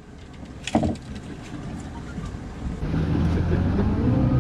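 A single knock about a second in, then the boat's engine comes in at about three seconds, running steadily with a brief rise and fall in pitch.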